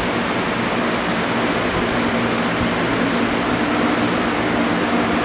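Stone CNC router running without a workpiece: a steady whirring machine noise with a low hum underneath.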